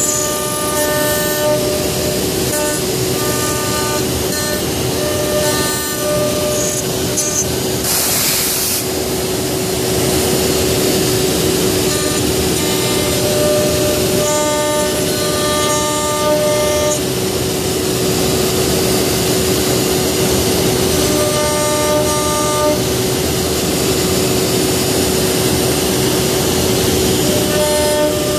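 CNC router spindle running with a steady whine while its end mill cuts into a wooden block. Sets of higher tones come and go in short runs as the head travels, with a brief hiss about eight seconds in.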